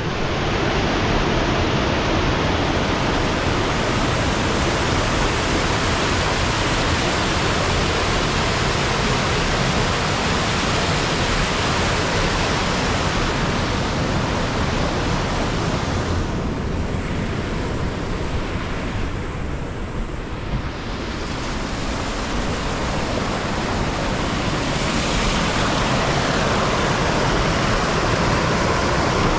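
Steady loud rushing of water, an even hiss with no rhythm. The higher part of the hiss thins for a few seconds about two-thirds through, then comes back.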